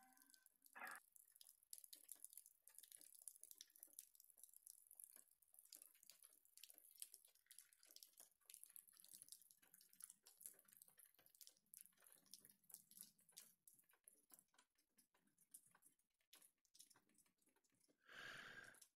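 Near silence, with faint scattered crackles and ticks.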